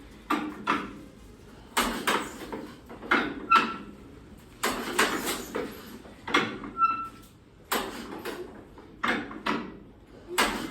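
Hand-cranking the 1938 Massey Harris Pacemaker's engine: a series of irregular clanking heaves about once a second, with a brief squeak now and then, the engine not catching into a steady run.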